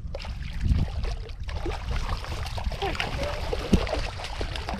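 A hooked ray thrashing in shallow water as it is hauled to the bank, churning up irregular splashing and sloshing.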